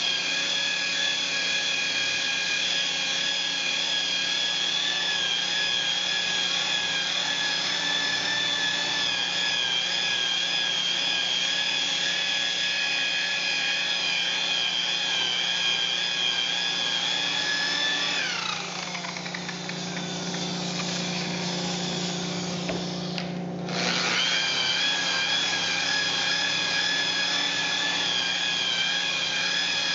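Makita electric rotary polisher running with a wool pad buffing a solid surface countertop, a steady motor whine. About 18 seconds in the whine falls in pitch and grows quieter as the polisher slows, then jumps back to full speed about five seconds later.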